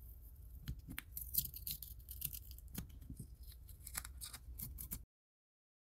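Blue masking tape being peeled off the painted resin body of a fishing lure: a faint, irregular run of small crackling rips that cuts off abruptly near the end.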